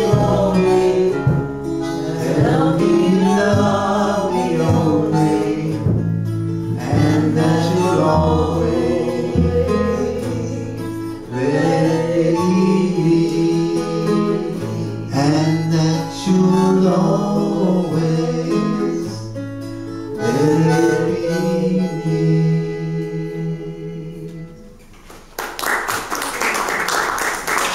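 A small acoustic band plays a song: strummed acoustic guitar and harmonica, with singing and a walking low line. The song ends about 25 seconds in, and applause follows.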